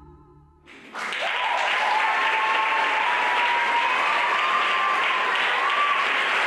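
The last held notes of the music fade, and about a second in an audience breaks into loud, steady applause. A long, wavering high-pitched call from someone in the crowd rides over the clapping.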